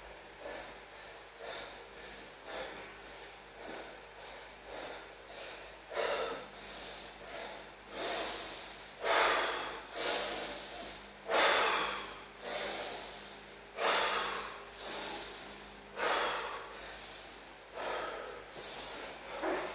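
A man breathing hard, out of breath from circuit training with deadlifts, burpees and chin-ups. Quick, softer breaths at first, then deeper, louder breaths about one a second from about six seconds in.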